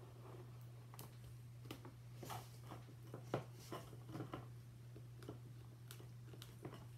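Faint handling noises of cardboard craft pieces being pressed and shifted by hand, a scatter of light taps and rustles, over a steady low hum.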